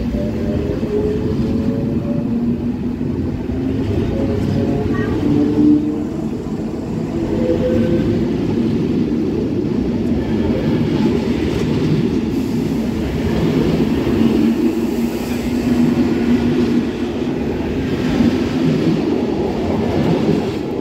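NMBS passenger coaches rolling slowly past close by: a steady wheel-on-rail rumble with intermittent wavering squealing tones.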